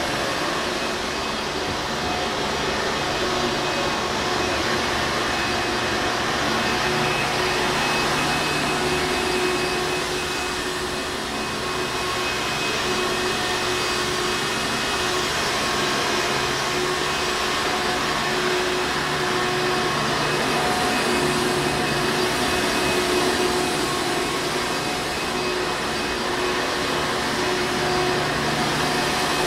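Hoover Encore Supreme vacuum cleaner running steadily: a continuous motor and airflow noise with a faint steady hum mixed in.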